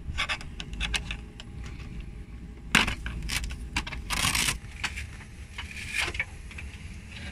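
Airliner economy seat being worked on by hand: scattered metallic clicks and rattles, with two louder scrapes about three and four seconds in as the seat cover and seat back are moved, over a steady low hum.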